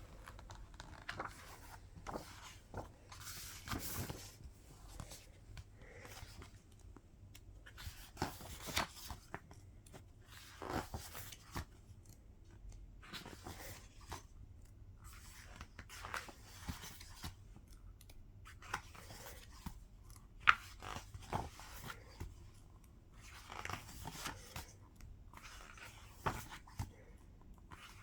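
Plastic wrapping being torn and crinkled off a boxed music album, with irregular rustling and crackling as the packaging is handled, and one sharp click about twenty seconds in.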